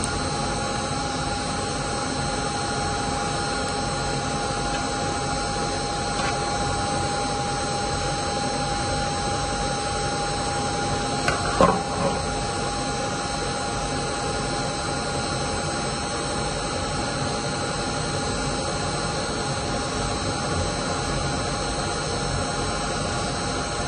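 Steady machine noise with a constant whine, like a fan or motor running. A few sharp clicks about halfway through.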